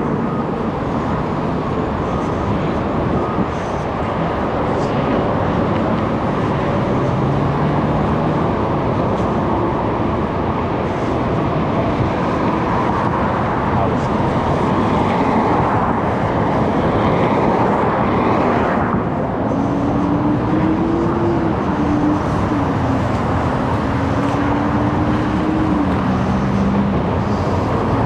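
Car driving on the road: steady tyre and road noise with engine drone, and a faint hum that wavers in pitch in the second half.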